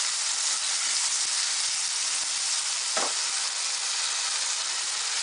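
Chopped tomatoes and onions sizzling steadily in hot oil in a pan as they are stirred, with a single knock of the spoon against the pan about three seconds in.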